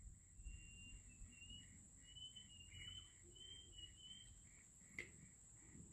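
Near silence outdoors: faint bird chirps in the first few seconds over a steady high thin whine and a faint regular pulsing, with one soft click about five seconds in.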